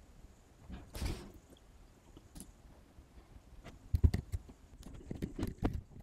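Scattered small clicks and light knocks of someone working a computer, clicking through files, with a short rustle about a second in and a low thump about four seconds in. A faint steady high whine sits under it.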